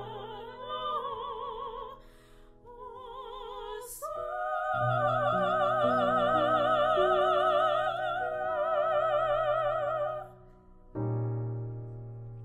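A high operatic voice singing with wide vibrato over piano accompaniment. The voice holds one long note from about five to ten seconds in, then drops out, and the piano sounds a new chord near the end.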